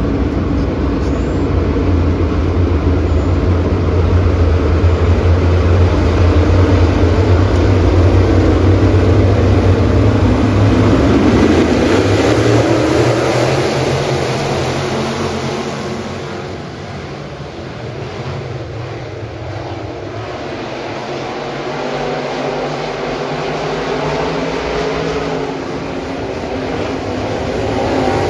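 A field of crate late model dirt-track race cars running their V8 engines around the oval. The sound is loudest in the first half, drops around the middle as the pack moves away, and builds again near the end as they come back around.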